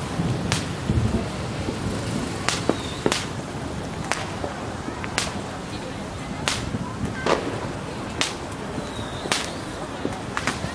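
Fireworks going off: a string of sharp cracks, roughly one a second at uneven intervals, over a steady background noise.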